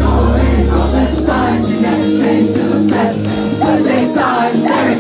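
Live band playing a song with many voices singing together. The low bass drops out about a second and a half in.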